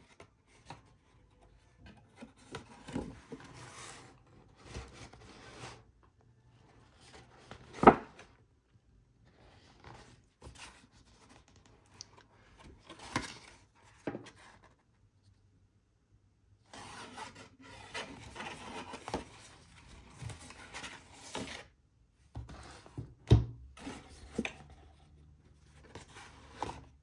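Cardboard packaging of an Apple Watch Ultra being handled and opened: stop-start handling and rubbing noise with a few sharp knocks, the loudest about eight seconds in and another near the end.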